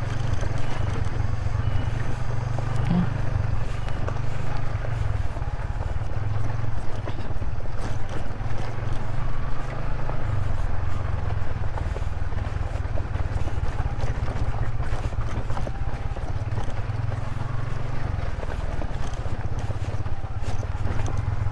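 Yamaha Vixion's single-cylinder engine running steadily under way, its low rumble swelling and easing with the throttle, over a rough stony track with scattered light knocks and rattles.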